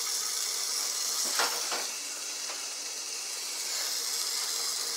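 Cut-up hot dog pieces sizzling in hot cooking oil in a stainless steel pan as they are dropped in: a steady high hiss, with two brief louder spatters about a second and a half in.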